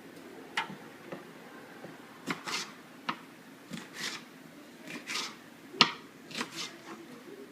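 Kitchen knife chopping vegetables on a cutting board: about a dozen irregular sharp knocks, the loudest about six seconds in.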